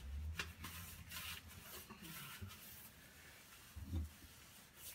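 Faint swishing strokes of a paintbrush on a wall, cutting in paint, with a soft low bump about four seconds in.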